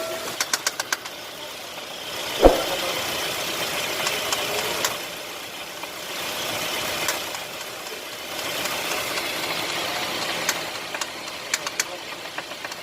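Car engine running with a rapid metallic knocking and ticking, the engine noise rising and falling in a few swells, with one sharp heavy knock about two and a half seconds in. The ticking is engine knock, which the mechanic calls a problem.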